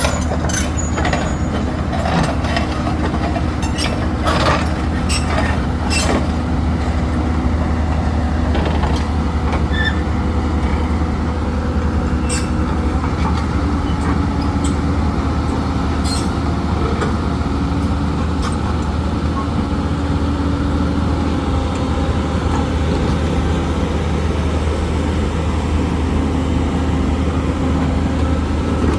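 Heavy diesel engines running steadily under a constant low hum, with a series of sharp metallic clanks and knocks in the first several seconds and a couple more later.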